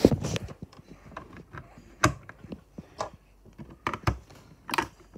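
Plastic Lego minifigures and bricks clicking and tapping as they are handled and set into a brick-built model: several sharp clicks, roughly one a second.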